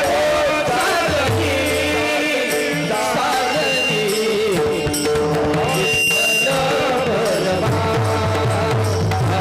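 Marathi devotional kirtan music: a sung melody over steady held tones and hand-drum strokes.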